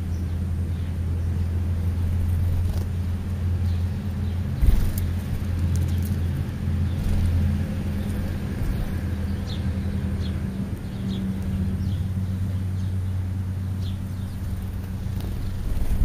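Steady low engine rumble, likely a nearby idling vehicle, with house sparrows giving short chirps now and then and a single knock about five seconds in.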